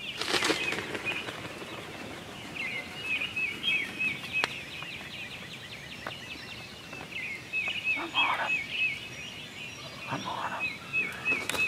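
Wild turkey gobblers gobbling several times, each a short rattling call. A songbird repeats short wavering high notes in quick runs behind them.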